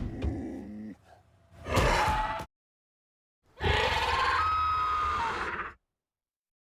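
Designed Pyroraptor dinosaur vocalizations, built from big-cat growls and bird calls. Separate clips are heard: the end of a growl, a short call about a second and a half in, and a longer growling call with a thin high bird-like tone from about three and a half to nearly six seconds. Each clip is separated by dead silence.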